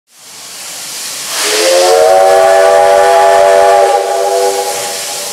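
Soviet Er-class 0-10-0 steam locomotive hissing steam, then sounding its steam whistle for departure: one long blast of several tones at once, lasting about two and a half seconds, sliding up slightly as it opens. Steam hiss carries on under and after it.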